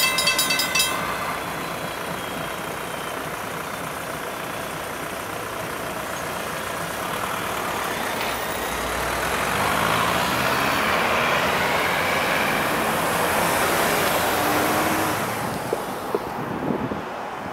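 Road traffic at a railroad grade crossing: a car or truck passes, its noise swelling and fading over several seconds in the middle. A rhythmic ringing, the crossing's warning bell, stops about a second in.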